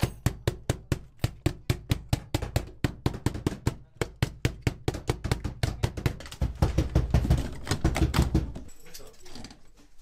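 Production machine knocking in a fast, even rhythm, about five strokes a second. It grows louder and denser near the end, then stops about eight and a half seconds in.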